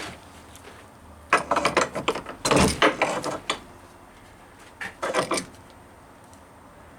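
Metallic clanks and rattling knocks in two bursts, a longer one a little over a second in and a short one around five seconds, as a differential draining its oil is shifted to level it.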